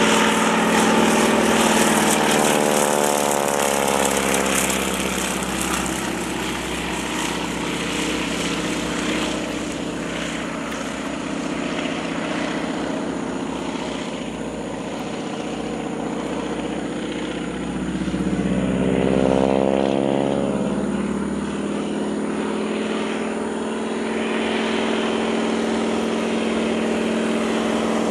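Radial-engine biplane crop duster flying low passes, its engine and propeller droning steadily. The pitch drops as it passes a few seconds in, the sound eases off, then grows louder again about two-thirds of the way through as it comes back round.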